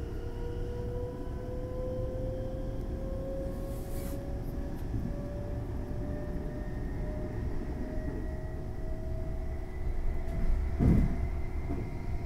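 Train heard from inside the carriage: a steady low rumble under a motor whine that slowly rises in pitch as the train gathers speed. There is a brief hiss about four seconds in and a louder thump near the end.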